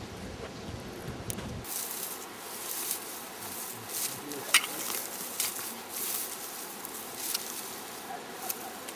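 Wind rumbling on the microphone for the first second and a half. After that, rustling of dry grass and the scrapes and knocks of a short-handled hand hoe digging into grassy soil, with scattered sharp clicks, the loudest about four and a half seconds in.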